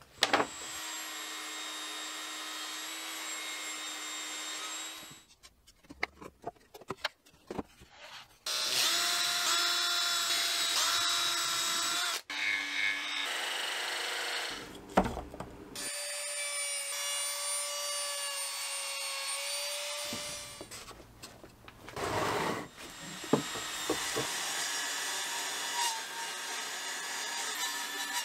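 Power saws cutting wood: a table saw's motor running at a steady pitch, then a jigsaw cutting a plywood panel, with knocks of handling the wood in the pauses between cuts.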